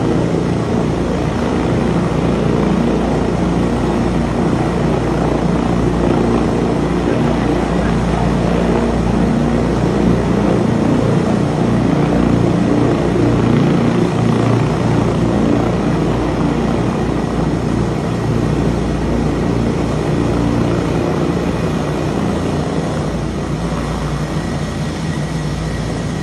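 Air ambulance helicopter flying low, its rotor noise loud and steady throughout, easing slightly near the end.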